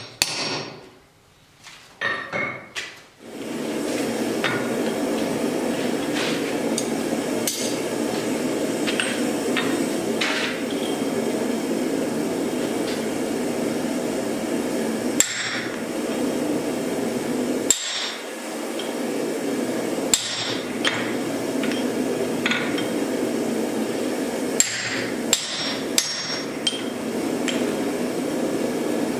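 Hand hammer striking a chisel into a glowing steel block on an anvil, slitting the eye of an axe head: single sharp blows every one to three seconds, coming faster near the end. A steady rushing noise runs under them from about three seconds in, after a few light taps at the start.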